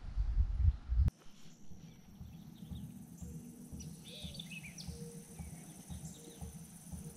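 Quiet outdoor river ambience: a low rumbling noise, with a few faint bird chirps around the middle. A louder low rumble in the first second cuts off abruptly.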